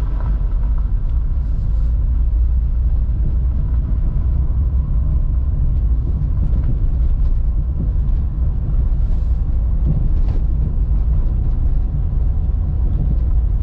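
A car being driven, its steady low road and engine rumble heard from inside the cabin.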